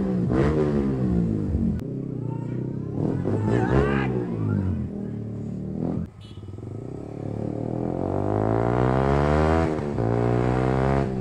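Yamaha R15M's single-cylinder engine through a loud full aftermarket exhaust, revving up and falling back several times while riding. In the second half the revs climb steadily for about three seconds, drop sharply at a gear change, then climb again.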